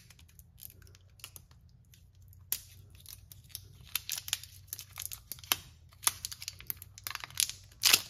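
Thin plastic wrapping being torn off a pair of AA batteries and crumpled by hand: a run of small crackles and clicks, sparse at first and busier after a couple of seconds, with the loudest crackle near the end.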